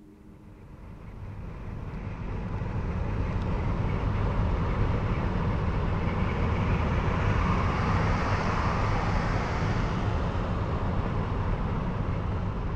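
Car driving along a road: a steady engine and tyre rumble with a broad hiss of road and wind noise, fading in over the first couple of seconds.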